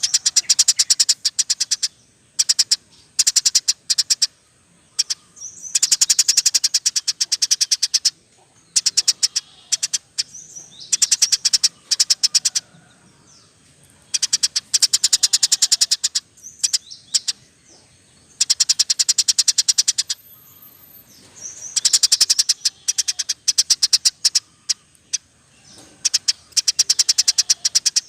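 Recorded songbird song mixing canary, lovebird and house sparrow: fast, high chattering trills in bursts of one to two seconds, repeated with short gaps between.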